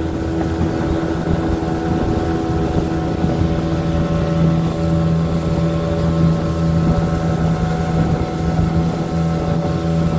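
Outboard motor running at a steady cruising speed, driving a small aluminium boat over the water: an even engine hum that holds its pitch, with wind buffeting the microphone.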